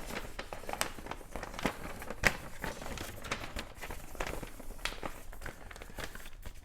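Paper and plastic packaging of a model kit being handled, crinkling irregularly with light clicks, one sharper click a little over two seconds in.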